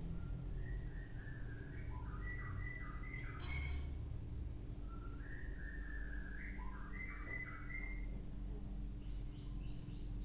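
White-rumped shama (murai batu) singing a string of short whistled phrases of quick stepped notes, with a thin steady high tone running behind it from about two seconds in and a brief click around the middle.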